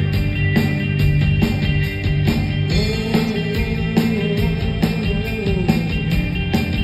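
A live rock band plays an instrumental passage with no vocals. A drum kit keeps a steady beat under electric guitars, bass and keyboards holding sustained notes, with some bending guitar lines in the middle.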